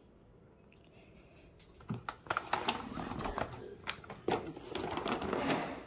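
Plastic carrier bag rustling and crackling as it is handled and pulled open by hand. It starts about two seconds in, after a quiet start.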